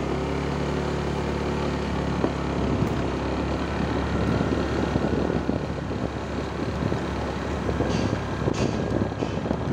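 Motorcycle engine running while riding along at steady speed, with wind rushing over the microphone that grows stronger after the first couple of seconds.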